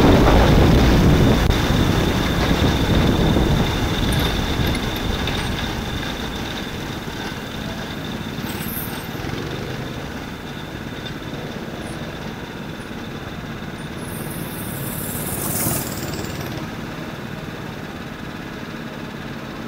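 Onboard sound of a Ninja kart running on a wet track: its small engine with tyre and wind noise, getting steadily quieter over the first ten seconds or so, with a thin steady high whine throughout. A brief hiss comes about fifteen seconds in.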